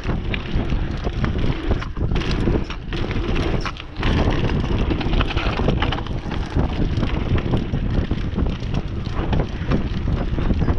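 Mountain bike tyres rolling over packed dirt and loose stones, with quick knocks and rattles from the bike over the rough surface and wind buffeting the microphone. The noise dips briefly just before four seconds in.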